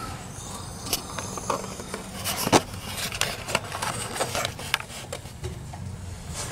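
Irregular clicks and knocks with a sharper knock about two and a half seconds in, over a low steady hum.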